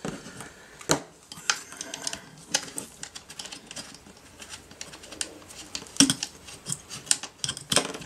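Irregular clicks and light knocks of hands and a tool working on a plastic joystick housing while its mounting screws are undone, a few sharper clicks standing out.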